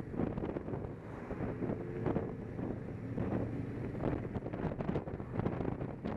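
Wind buffeting the microphone of a camera mounted on a moving motorcycle, with the motorcycle's engine running underneath.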